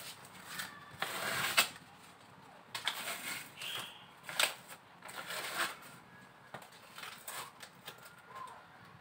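Irregular rustling, crinkling and light tapping of a foil-faced foam heat-insulation sheet being handled and pressed into place under a car bonnet, with sharper crackles about one and a half and four and a half seconds in.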